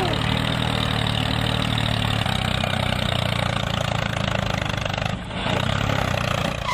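Tractor engine running steadily, with a brief drop about five seconds in.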